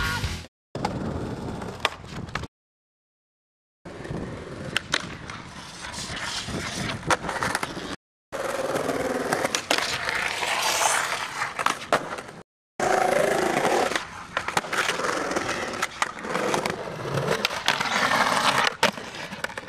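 Skateboard wheels rolling on concrete, with sharp clacks as the board pops, lands and grinds along concrete ledges, in several short takes broken by abrupt gaps of silence.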